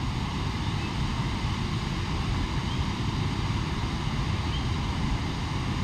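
Steady rush of the fast-flowing Beas River, with some wind buffeting the microphone.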